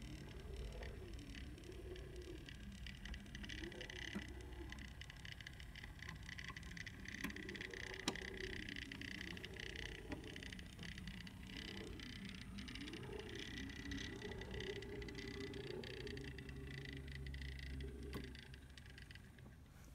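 Scratch-built HO scale brass railcar running along the track. Its small can motor and gearing whine steadily, under a hum that rises and falls in pitch about once a second, with a few sharp clicks from the wheels on the rail. It runs rough and noisy, not as quietly and smoothly as it normally does, and fades slightly near the end as it pulls away.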